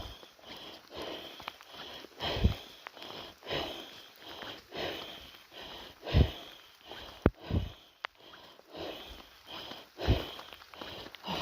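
A person walking a wet trail: footsteps thumping unevenly, with breathing and sniffing close to the microphone.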